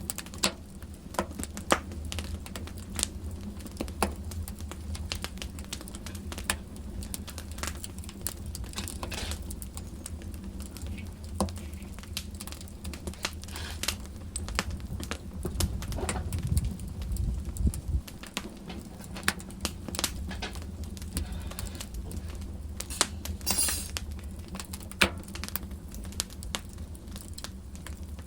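Wood fire in a fireplace crackling, with irregular sharp pops and snaps over a low rumble of the flames.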